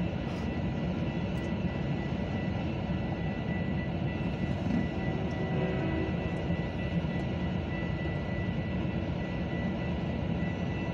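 Railroad crossing warning bell ringing steadily while the crossing gates lower, over a constant low rumble.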